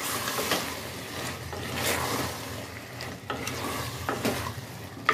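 A spatula scraping and stirring sliced raw potatoes into kheema (minced meat) masala in an aluminium pressure cooker pan as they are fried, in uneven strokes.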